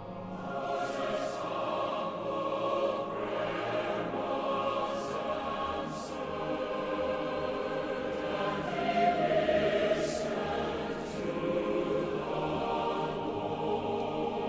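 Choral film music: a choir singing slow, sustained chords, swelling louder about two-thirds of the way through.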